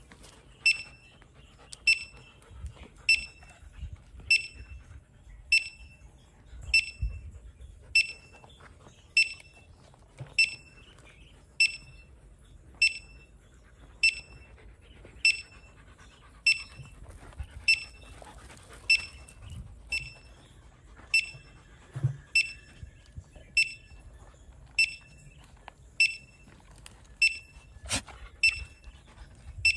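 Handheld metal detector beeping: a short high-pitched beep repeating at a steady even rhythm, a little under twice a second.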